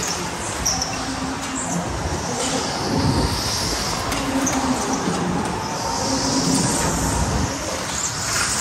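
Go-kart running hard through corners on an indoor track, heard from on board: a steady rush of drive and tyre noise, with tyres squealing in the turns, several short squeals and a longer one about six seconds in.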